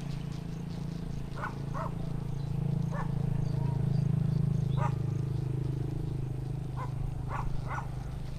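Short animal calls, about seven of them at uneven intervals, over a steady low hum.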